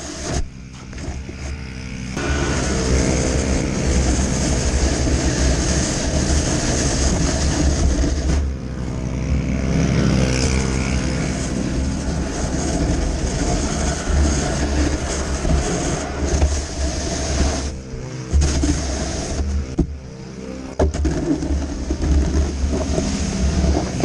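Toro single-stage snowblower engine running steadily while clearing snow, with two brief dips in level, about a third and three quarters of the way through.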